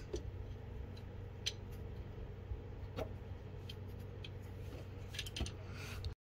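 Faint, scattered metal clicks of a 12 mm wrench knocking against the bolt and nearby engine parts as it is fitted onto the belt tensioner's lower bolt, over a steady low hum.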